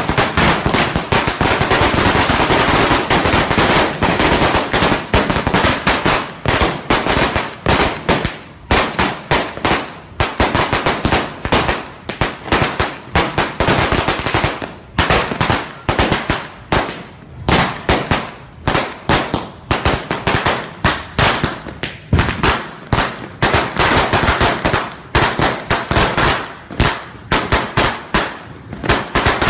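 Strings of traditional explosive firecrackers going off: dense, rapid crackling that comes in surges, broken by several brief lulls.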